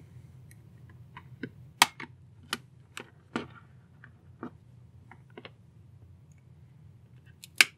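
Snap-fit clips of the M5Paper's white plastic case clicking and snapping as a plastic spudger pries the halves apart. A string of irregular sharp clicks, the loudest about two seconds in and another near the end.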